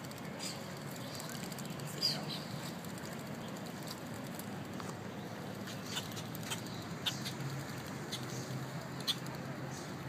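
Small birds splashing as they bathe in shallow water: light pattering, with a few short sharp sounds standing out, over a steady low background hum.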